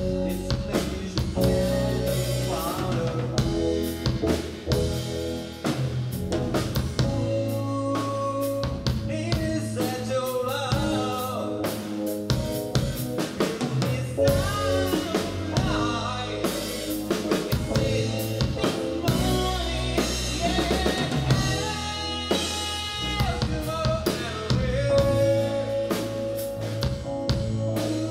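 Live band playing: drum kit with snare and bass drum, electric bass guitar and Roland keyboard together, with a steady beat.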